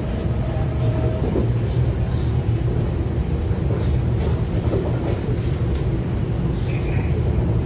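MTR SP1900 electric train running at speed, heard inside the passenger car: a steady low rumble of wheels and running gear. A thin tone stops about a second in, and a few faint clicks come later.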